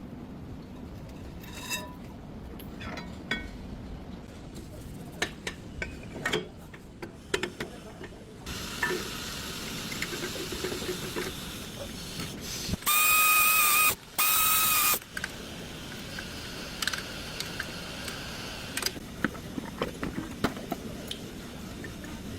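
Tools clicking and knocking on metal during car brake work. About halfway through come two loud hissing blasts of about a second each, with a whistling tone in them.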